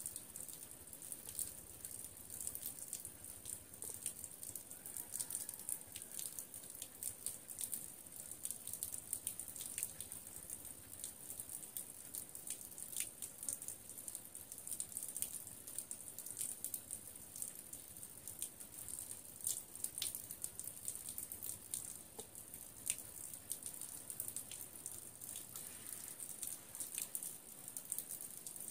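Water dripping and small scattered ticks as wet clothes are pulled on, over a steady high-pitched hiss of outdoor background.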